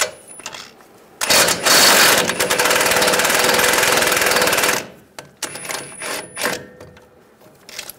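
Cordless impact wrench hammering for about three and a half seconds, starting about a second in, as it loosens a ball joint nut; a few short clicks follow.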